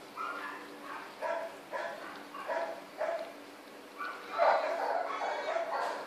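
Dogs barking repeatedly, short barks about every half second, building to a louder flurry of barking about four seconds in.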